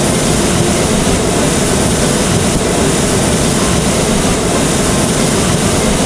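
Hot air balloon's propane burner firing in one long, steady, loud blast of hissing flame.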